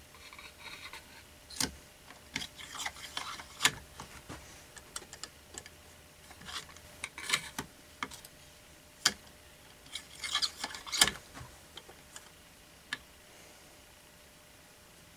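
Steel cleaning rod being pushed down through an AR-15 barrel with a dry patch, the rod and patch rubbing and scraping in the bore, with scattered light clicks and knocks as the rod is worked in the upper receiver. The dry patch is wiping the solvent out of the bore.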